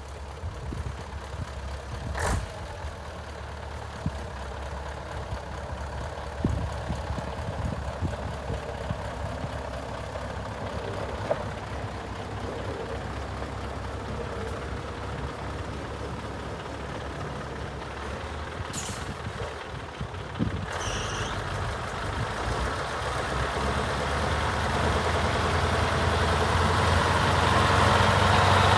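Scania 143H 400 truck's V8 diesel engine running as the truck drives up, getting steadily louder over the last several seconds as it comes close. A few short air-brake hisses and squeaks break in along the way.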